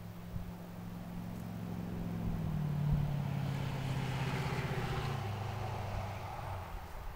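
A motor vehicle's engine passing by. It grows louder to a peak about three seconds in, its pitch falling, then fades.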